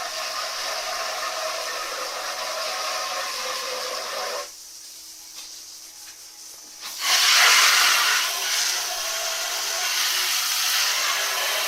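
Water spraying onto a sooty metal wood stove as it is rinsed clean. The steady hiss stops about four and a half seconds in and starts again, louder, about two seconds later.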